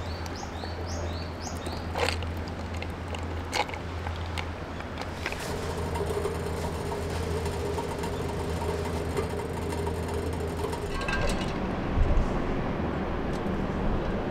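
Hot water poured from a kettle into a drip-bag coffee in a titanium mug, over a steady low hum. A bird gives a quick run of short rising chirps at the start, and a couple of knocks come near the end.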